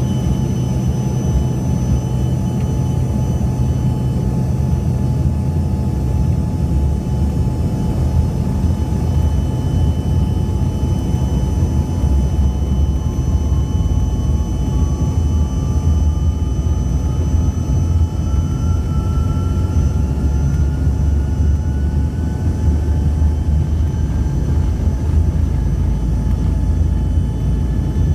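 Jet airliner cabin noise while taxiing: a steady low engine rumble heard from inside the cabin, with a thin engine whine that slowly rises in pitch through the second half.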